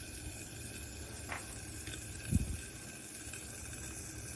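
Hot olive oil sizzling steadily in a pan around a piece of tortilla, bubbling as it comes up to frying heat. A single low thump about halfway through.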